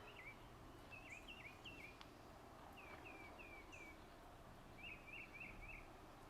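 Faint birdsong: short down-slurred chirps repeated in quick runs of three or four, with short gaps between runs, over near-silent background.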